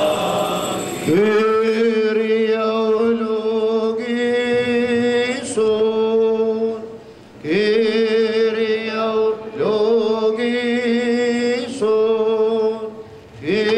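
A man's voice chanting liturgical chant in long held notes on a nearly steady pitch, phrase after phrase, each phrase sliding up into its note, with brief breaths between.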